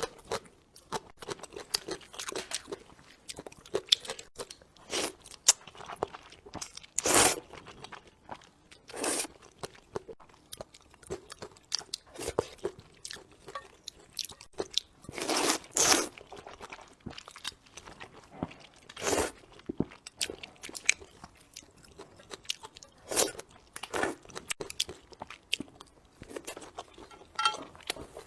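A person eating crunchy food close to the microphone: irregular crisp bites and chewing crunches, with a handful of louder crunches scattered through.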